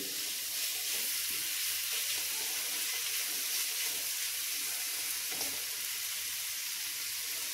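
Diced potatoes and chopped tomatoes frying in oil in a kadhai, sizzling steadily as a constant high hiss.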